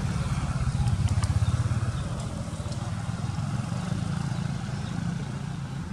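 Low, steady engine rumble, loudest about a second in and easing slightly afterwards.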